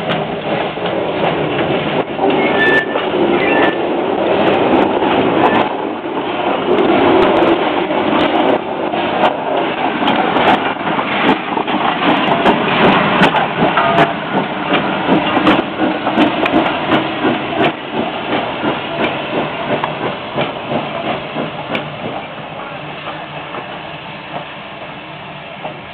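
Arcade & Attica No. 18, an ALCO 2-8-0 Consolidation steam locomotive, backing past tender-first at close range: hissing steam at the cylinders, with clanks and clicks from the running gear and wheels. It grows louder to a peak about halfway through, then fades as the engine moves away.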